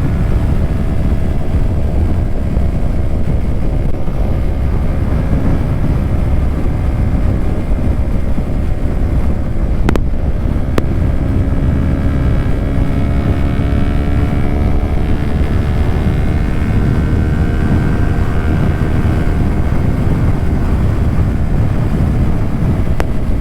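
Motorcycle at a steady cruise, heard through a helmet microphone: heavy wind rush over the helmet with the Kawasaki Ninja 400's parallel-twin engine note underneath, its pitch drifting slightly. Two faint ticks about ten seconds in.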